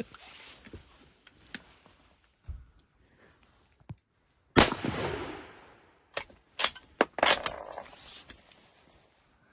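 A rifle shot about halfway through, with a long echo dying away, followed a second or two later by several sharper cracks.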